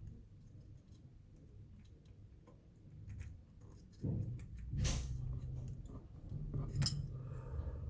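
Scattered small clicks and taps. A low hum comes in about four seconds in, and two sharper clicks follow about two seconds apart.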